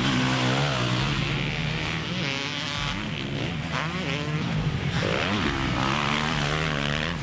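Motocross bikes racing, more than one engine heard at once, each revving up and dropping back again and again as the riders shift and take the jumps.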